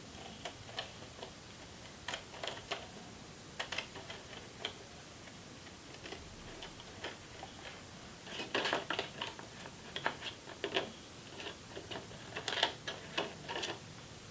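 Small irregular clicks and snips of a thin polyester filter sheet being cut down to size, sparse at first and coming thicker in the second half.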